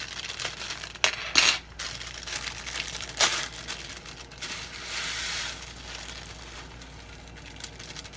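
Plastic bag of uncooked long-grain white rice crinkling as it is handled, with a few sharp clicks, then the dry rice pouring out in a hissing rush about four and a half seconds in.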